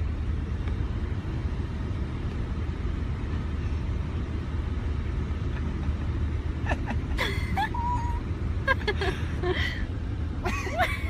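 Steady low road rumble of a car in motion, heard inside the cabin. From a little past halfway, a cat yowls and hisses in several short bursts.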